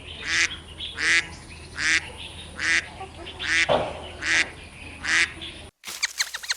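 A duck quacking over and over, about seven harsh, nasal quacks evenly spaced a little under a second apart; the calls stop abruptly near the end.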